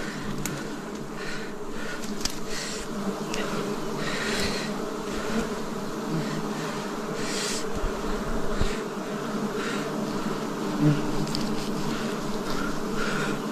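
A mass of wild honeybees buzzing steadily around their nest, with short bursts of rustling noise every second or two.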